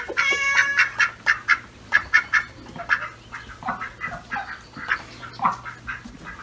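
Ducks quacking repeatedly in short calls, one after another, with one longer bird call just at the start.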